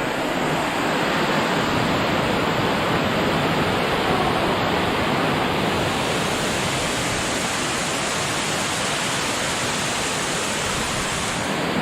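Waterfall: a steady rush of water pouring over the falls, close by. The hiss turns brighter from about halfway through and drops back just before the end.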